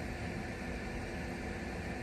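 Steady background hum and hiss, with a few constant tones and no distinct knocks or other events.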